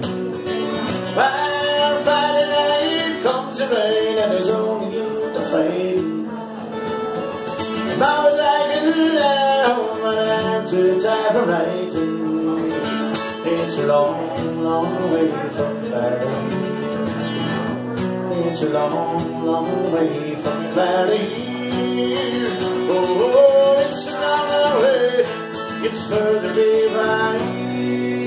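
Country-folk style music: acoustic guitar with a melody line over it.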